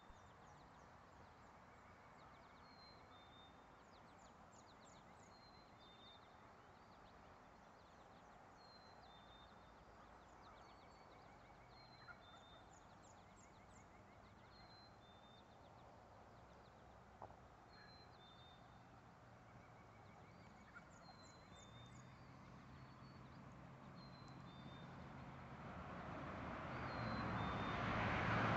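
Faint dawn chorus of songbirds: one bird repeats a short, high two-note phrase about every two seconds, with thinner chips and trills around it, over a low hum of distant traffic. In the last several seconds the traffic noise of a passing vehicle swells and grows loud.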